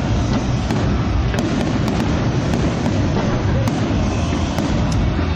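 Fireworks display: a dense, continuous barrage of shell bursts booming at the low end, with many sharp cracks scattered through it.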